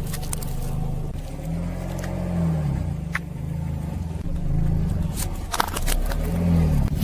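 Car engine running at low revs, its pitch rising and falling a few times as the car rolls, with a few sharp cracks and crackles from objects crushing under the tyres.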